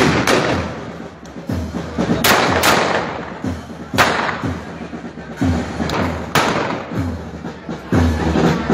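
Shots from the long guns of costumed gunmen, sharp cracks with echoes: one at the start, two in quick succession a little over two seconds in, and another at about four seconds. Under them a marching band's bass drum thuds and crowd voices carry on.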